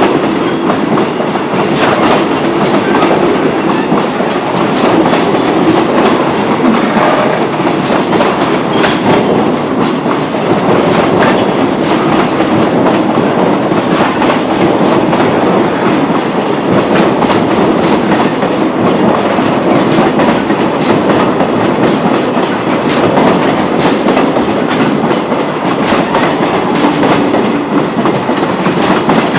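Long freight train rolling past without a break, its wheels clattering over the rail joints in a quick, uneven patter of clicks.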